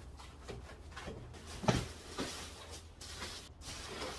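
Knocks and clicks of a 3D printer's metal gantry frame being handled and set onto its base, with one sharp knock about a second and a half in.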